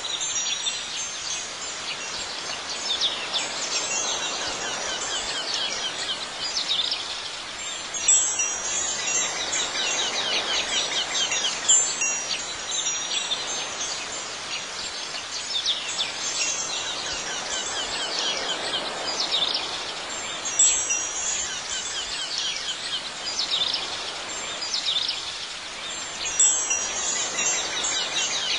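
Wind chimes tinkling continuously in clusters of high, falling notes that swell every few seconds, over a soft steady hiss.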